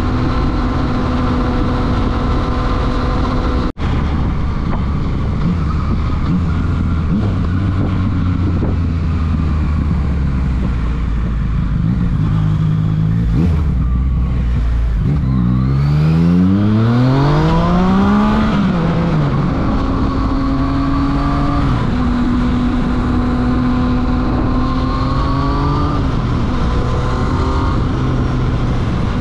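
Yamaha FZ-09's three-cylinder engine through a full Akrapovič exhaust, heard from the rider's seat. It runs steadily, then at low revs. About halfway through it revs up hard with a rising pitch that drops sharply at a gearchange, then it settles into a steady cruise with a smaller rise in pitch. The sound cuts out for an instant about four seconds in.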